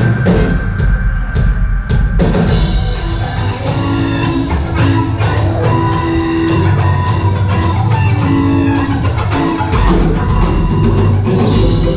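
Live rock band playing: electric guitars over a drum kit, with sustained notes and a steady beat.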